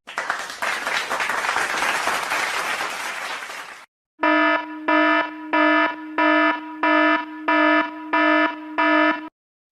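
Two sound effects in turn: almost four seconds of dense noise that fades out, then, after a short gap, an electronic alarm buzzer sounding eight short buzzes at about one and a half a second.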